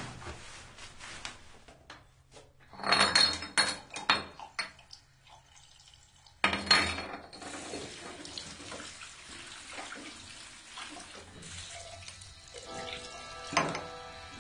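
Glass bottles and toiletries clattering against a ceramic bathroom sink a few seconds in, then a tap turned on about halfway through, water running steadily into the basin. A single knock near the end, with faint music underneath.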